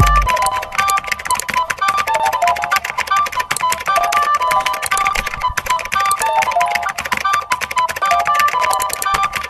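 Upbeat background music: a bright stepping melody over fast clicking percussion, with a heavy low bass that drops out just as it begins.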